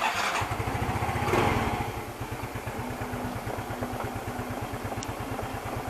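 Yamaha Mio Soul i 125 scooter's single-cylinder engine starting and settling into a steady idle, its exhaust beating in even low pulses, with a brief swell about a second and a half in.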